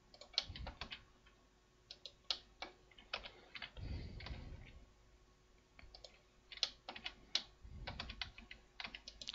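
Faint, irregular clicking and tapping of a computer keyboard and mouse, a few keystrokes at a time, with a soft low thump about four seconds in and again near the end.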